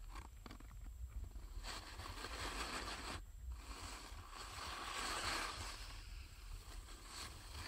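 Skis hissing and scraping over packed snow in long swishes, loudest about five seconds in, with a low wind rumble on the microphone underneath.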